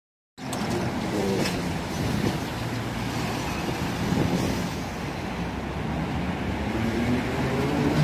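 An 81-717-type metro train standing at the platform with a steady electrical hum, then starting to pull away near the end, its traction motor whine rising in pitch as it accelerates.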